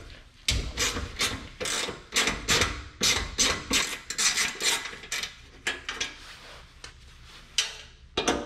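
Hand ratchet clicking in quick repeated bursts as it backs out the bolts holding the exhaust heat shield, with a short lull about two-thirds of the way through.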